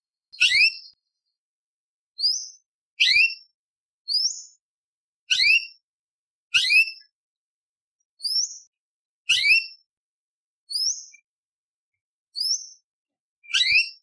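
Orange-bellied leafbird calling: eleven short, sharp rising whistled notes, about one a second with silence between, some ending in a lower second note.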